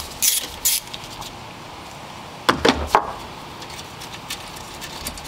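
Hand tools and metal parts being handled in an engine bay. There are a couple of short scraping rustles near the start, then a cluster of light metallic clicks and knocks about two and a half seconds in, and then a run of faint ticks as work starts on the 10 mm bolt of the alternator wiring bracket.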